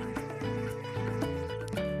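Background music: a bouncy tune of short pitched notes over a stepping bass line.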